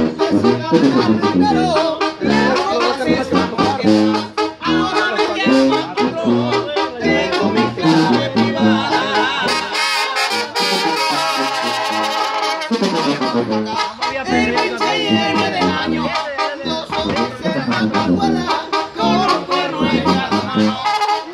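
A live Mexican banda brass band playing a song: trumpets and other brass over a beat of drums. About halfway through, the low bass drops out for a few seconds while the horns hold chords.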